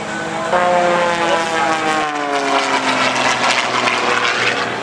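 Single-engine aerobatic propeller plane's engine and propeller, its pitch sliding steadily down over the first couple of seconds. The steady tone then gives way to a rougher rushing sound.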